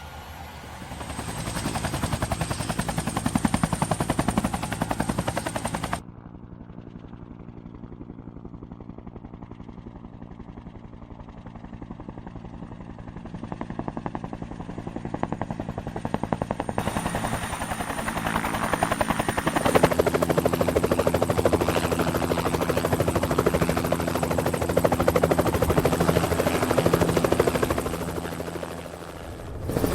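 Helicopter running: a fast, even rotor beat over a steady engine hum, with a high turbine whine coming and going. The sound drops abruptly about six seconds in and builds back up over the second half.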